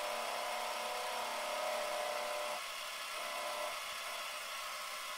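Small metal lathe running with a steady whine while its cutting tool turns a carbon fiber ring blank to size; it eases slightly about halfway through.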